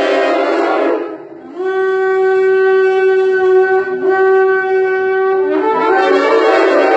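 Shofar (ram's horn) blowing loud sustained blasts. A rough, buzzing blast ends about a second in, followed by a short dip, then a long steady clear note, briefly broken near the middle. The sound turns rough again near the end.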